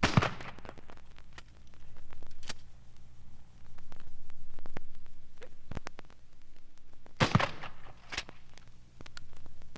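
Sharp cracks, the loudest at the very start and another pair about seven seconds in, with scattered lighter clicks between them over a steady low hum.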